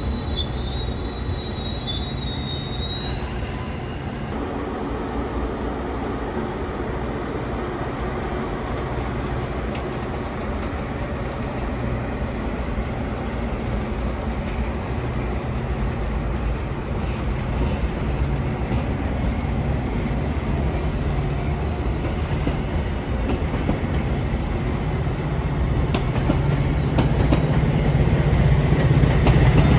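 Train rolling past on steel rails, a steady clatter with a thin high wheel squeal during the first few seconds. Near the end it gets louder, with a low steady engine hum.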